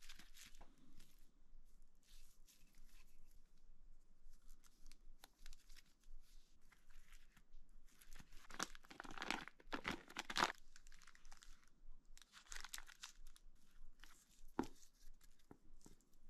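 Plastic wrapping on sheets of material stock crinkling and rustling as they are handled, in irregular bursts that are loudest around the middle, with one sharp tap near the end.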